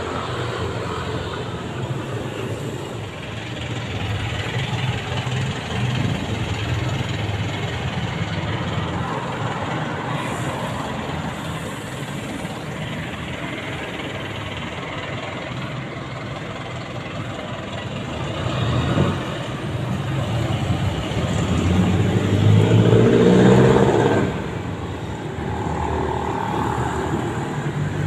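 Street traffic: motor vehicles running and passing, a steady rumble that swells as a louder vehicle goes by about three-quarters of the way through.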